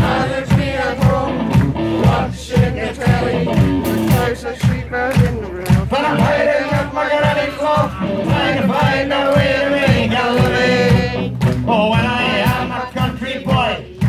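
Live band music with singing over a steady drum beat.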